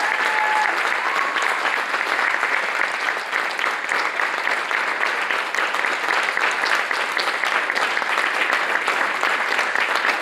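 Audience applauding steadily: sustained clapping from a concert-hall crowd.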